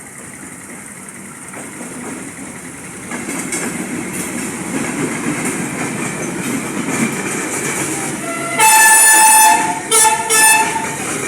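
Train approaching with a growing rumble of wheels on rails, then its horn sounds: one long blast of about a second followed by two short blasts. The horn is the loudest sound.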